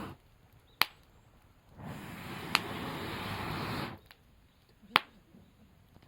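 Campfire burning, with three sharp pops of wood snapping in the fire: about a second in, midway and near the end. The steady hiss of the fire cuts out abruptly twice.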